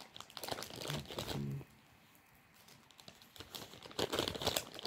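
Rustling and crinkling crackle close to the microphone, in two spells with a quiet gap of about two seconds between them, and a brief murmur of voice about one and a half seconds in.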